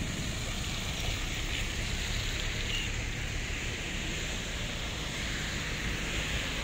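Steady wind noise on the phone microphone over a low rumble of idling vehicles.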